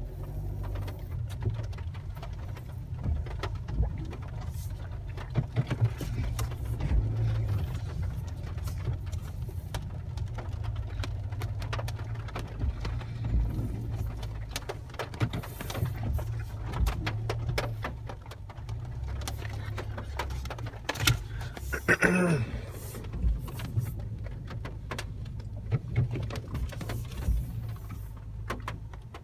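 Steady low rumble of a car heard from inside the cabin, with scattered light ticks. A brief pitched call rises and falls about three quarters of the way through.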